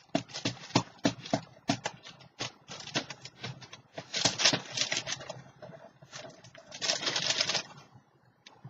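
Waxed paper crinkling and crackling as it is handled and pressed down over glued pieces, in a run of sharp crackles with two denser, louder crinkling stretches about four and seven seconds in.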